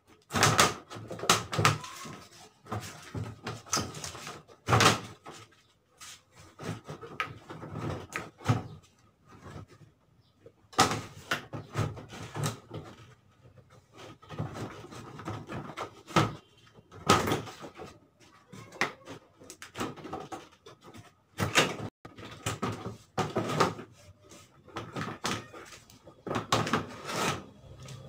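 Plastic top panel of a twin-tub washing machine being worked loose and lifted off the cabinet: repeated irregular knocks, clacks and rattles of plastic.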